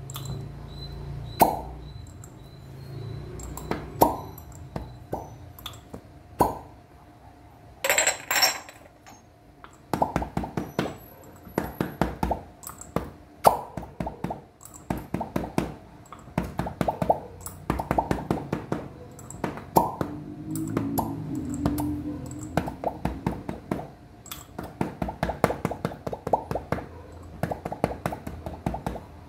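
Glass fire-cupping cups popping on and off oiled skin, over and over in quick trains of pops, with light clinks of glass. A short hiss comes about eight seconds in.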